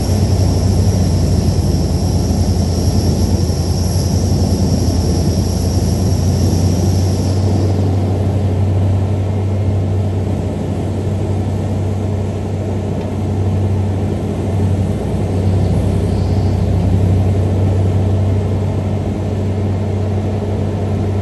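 Bruno Titan mobile wood chipper running under load while chipping wood: a loud, steady, low engine drone, with a faint high whine that stops about eight seconds in.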